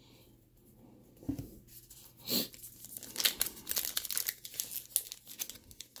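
Wrapper of a 2019 Topps Heritage baseball card pack crinkling and tearing as it is handled and ripped open. After a quiet first second, a run of irregular quick crackles and small rips.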